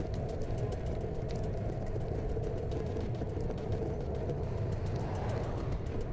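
Steady wind rushing over a handlebar-mounted action camera's microphone as a bicycle rolls along pavement, with tyre road noise underneath and scattered faint ticks.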